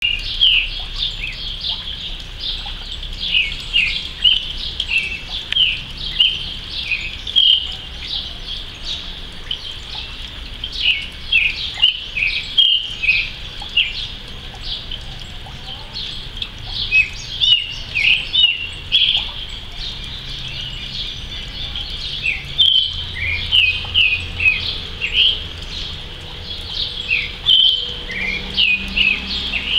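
Creamy-bellied thrush (Turdus amaurochalinus) singing: a steady stream of short, high, varied whistled notes, several a second, that rise and fall in pitch with only brief pauses.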